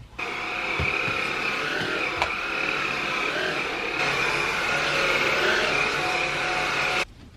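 Cordless stick vacuum cleaner running with a steady high whine, cutting in and out sharply.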